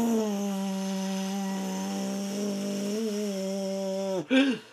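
A man's voice making a long, steady buzzing drone that imitates a small electric food processor chopping salsa, held on one deep breath. The pitch sags slightly, then wobbles and falls away about four seconds in as the breath runs out.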